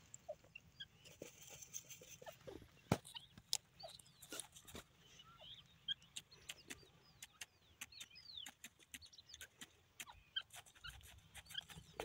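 Scattered soft clicks and taps, with one sharper knock about three seconds in. Short high chirps and brief downward-sliding whistles of small birds are sprinkled through it.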